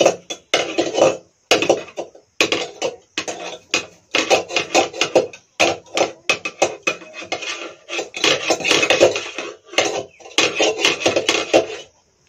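Wild mushrooms being cut by hand against a boti, an upright curved kitchen blade fixed to a base on the floor: rapid bursts of crisp cutting clicks, each burst lasting about a second, with short pauses between.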